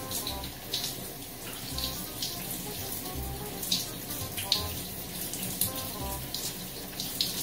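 Shower spray running steadily, with short wet smacks of chewing through it.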